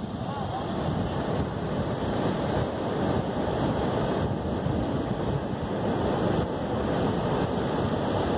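Steady wash of ocean surf at a rocky tide pool, with wind noise on the microphone.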